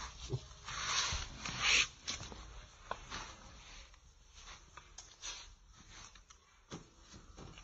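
Slowed-down puppy recording between cries: two breathy hisses about a second in, then faint rustling and scattered small clicks, with no whine.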